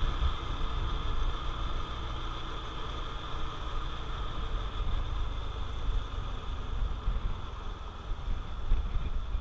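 Honda CT125 Trail's single-cylinder engine running steadily under way, with wind buffeting the microphone as a low, uneven rumble.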